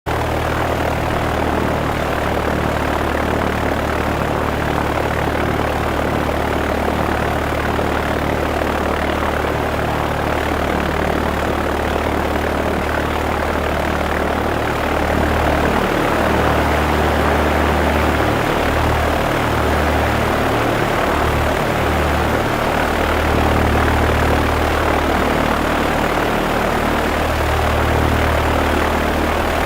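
Propeller aircraft engine sound effect: a steady rushing engine drone over a low hum. About halfway through, the hum grows a little louder and cuts in and out a few times.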